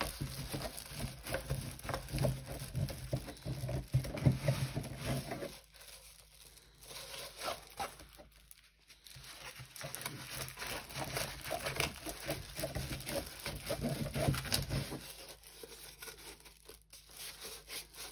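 Plastic-film-covered diamond painting canvas crinkling and rustling as it is unrolled and handled. The sound comes in two bouts with a quieter gap of a few seconds between them.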